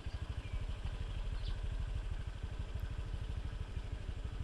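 A small engine running steadily with a rapid, even low putter.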